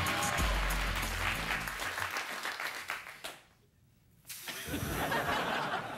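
Studio audience applauding over band music with a low bass line. The sound drops almost away for a moment about three and a half seconds in, then the applause picks up again.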